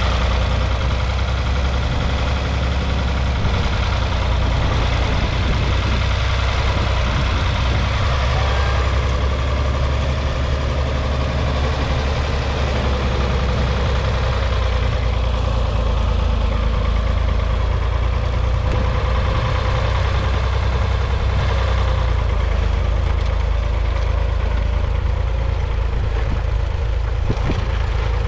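Ford County 4000 Four tractor's 3.3-litre three-cylinder diesel engine running steadily while pulling a mounted two-furrow plough.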